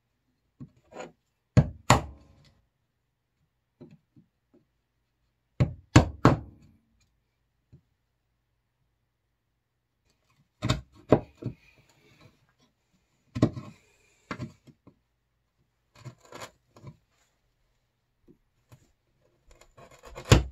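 Mallet striking a wood chisel as it chops out a shallow recess in plywood: sharp knocks in groups of two or three every few seconds, with a single knock near the end.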